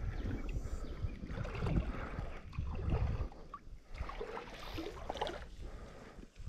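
Wind buffeting the microphone in uneven low rumbles, with water sloshing.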